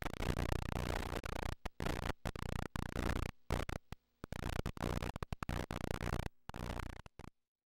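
Glitchy static noise over a low hum, cutting in and out abruptly many times before stopping near the end.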